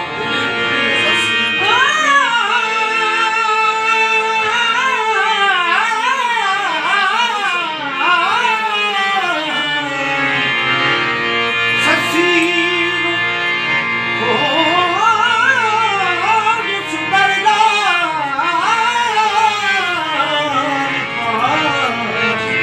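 A man singing a Punjabi song in long, ornamented phrases, accompanied by two harmoniums and tabla. The voice drops out for a few seconds around the middle while the harmoniums and tabla keep playing.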